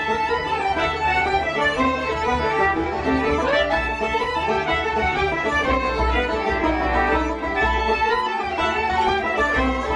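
Traditional Irish session music played live by a group of acoustic instruments: accordion, fiddle and uilleann pipes with plucked strings, a steady unbroken run of a dance tune.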